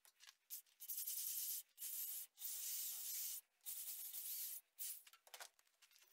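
Drill bit boring into a resin-stabilized desert ironwood handle block in repeated short cutting bursts, about half a second to a second each, with brief pauses between them as the bit is pecked in and out.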